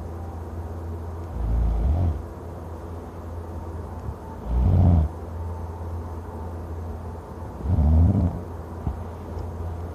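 A man snoring loudly: three deep snores about three seconds apart, each under a second long, over a steady low hum.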